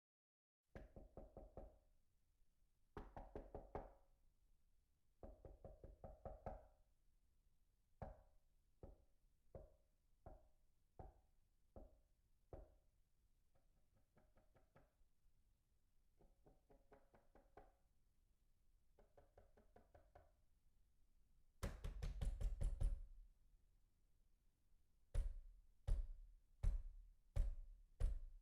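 Knocking on a door in a series of patterns. Quick bursts of several knocks come first, then slow single knocks about a second apart, then softer, lighter rapid knocking. Near the end comes loud, rapid pounding, followed by heavy single bangs spaced well apart.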